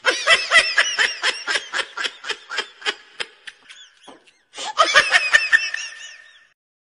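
People laughing hard in quick, high-pitched bursts of about four or five a second, several voices overlapping. The laughter breaks off just after four seconds in, comes back loudly, then stops abruptly near the end.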